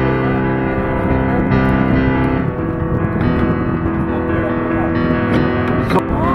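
Background music with sustained keyboard chords that change every second or so.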